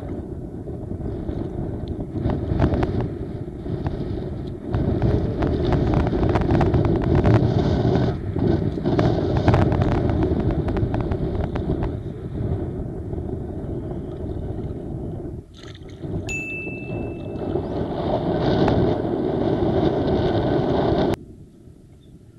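Wind buffeting the microphone with water sloshing around, a loud uneven rumble that cuts off abruptly near the end.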